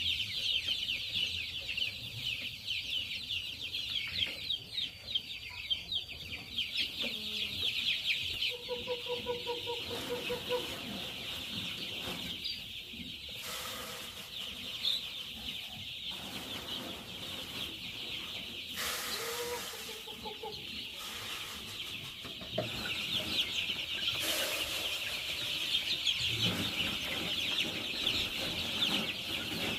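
A large flock of young chicks peeping continuously, a dense chorus of high chirps that thins in the middle and swells again near the end. A few short knocks come through.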